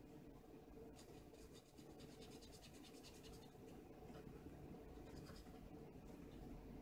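Faint scratching of a black marker on paper, with quick repeated strokes as a dark area is filled in. A steady low hum sits underneath.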